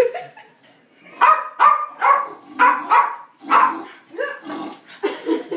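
Small dog barking repeatedly in agitation at a cardboard paper-towel tube, a run of about ten short barks starting about a second in.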